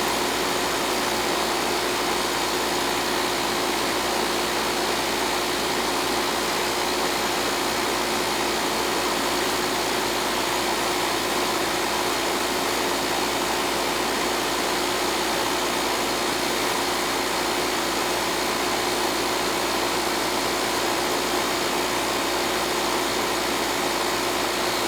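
Coleman central air conditioner's outdoor condensing unit running steadily, its compressor and condenser fan giving a constant hum with a few steady tones over an even rush of air.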